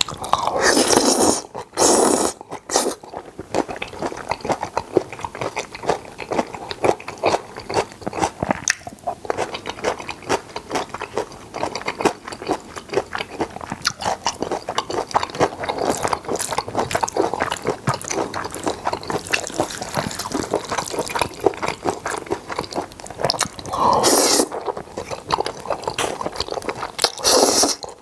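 Close-miked wet chewing of seafood jjajangmyeon, noodles in black bean sauce, with many small sticky mouth clicks. Loud noodle slurps come about a second in and twice near the end.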